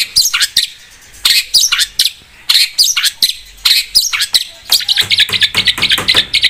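Long-tailed shrike (cendet) singing vigorously: a rapid run of sharp, harsh notes and quick downward-sweeping calls, packing into a fast chatter in the last second and a half.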